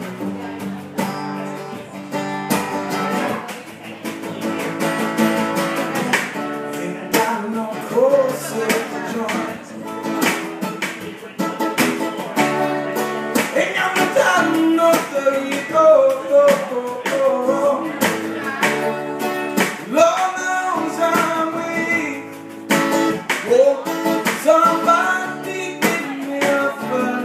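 Acoustic guitar strummed live with a snare drum keeping a steady beat, and a man singing along from about eight seconds in.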